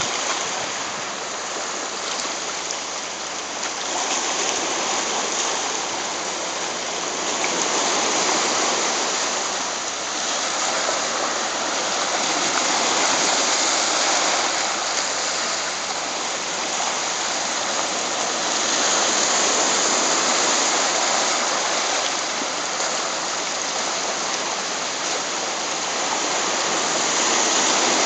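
Small waterfall splashing down onto a beach: a steady rush of falling water that swells and eases slowly.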